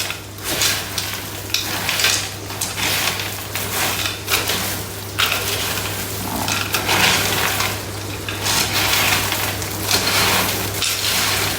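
A spatula stirring and scraping a dry mix of Nutri-Grain cereal and nuts, the pieces rustling and rattling in irregular strokes.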